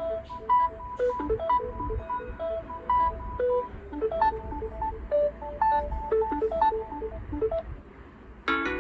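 Samsung Galaxy S10e ringtone playing: a quick melody of short electronic notes that stops about seven and a half seconds in. Just before the end, the next ringtone starts with a plucked, harp-like chord.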